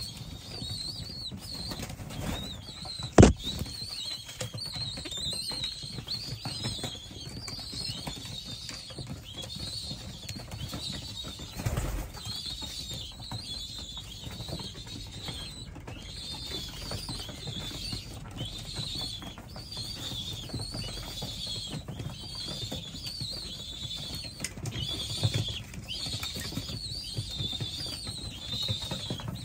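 Racing pigeons moving about in a loft, with wings flapping now and then and a run of high chirps repeating about once a second. A single sharp knock about three seconds in, and a duller thump near the middle.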